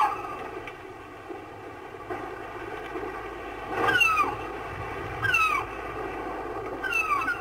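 A gull calling in short cries that fall in pitch, one at the start and three more in the second half about a second and a half apart, over a steady background hiss.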